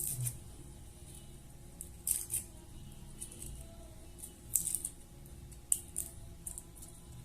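A garlic clove being peeled and trimmed by hand: a few short, crisp, papery scrapes and clicks, spaced a second or two apart.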